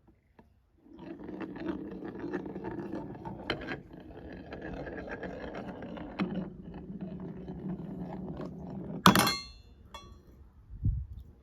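A glass marble rolling along wooden marble-run slopes for about eight seconds, with small clicks as it crosses track joints. It ends in one sharp, ringing clink, followed by a soft low thud near the end.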